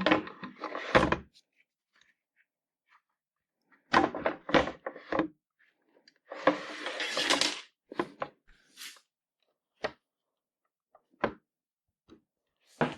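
Handling knocks and clunks, a scraping or sliding noise lasting about a second and a half, then a few single sharp clicks; the saw is not running.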